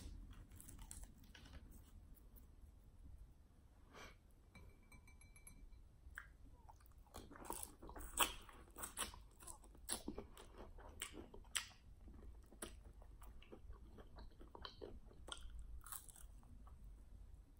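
Close-miked chewing and biting on crunchy fried chicken wings, with sharp crunches and wet mouth clicks that come thickest in the middle of the stretch.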